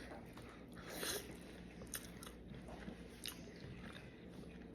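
Faint chewing and small mouth clicks of a person eating a bite of barbecue rib.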